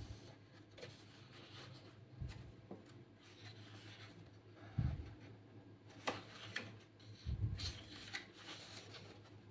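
Pages of a printed book being turned by hand: soft paper rustles and swishes, riffling through several pages near the end, with a few dull thumps from handling the book.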